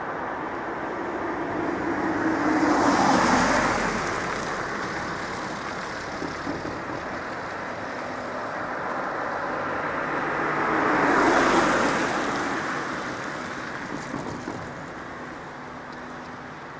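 Two road vehicles, a van and then a car, driving past over a railway level crossing, each rising to a peak of tyre and engine noise and fading away.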